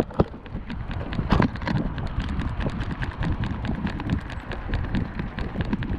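A Yorkshire terrier trotting, its footsteps a fast, even patter of about eight clicks a second. The sound is picked up by a camera strapped to the dog, with low rumbling handling noise underneath.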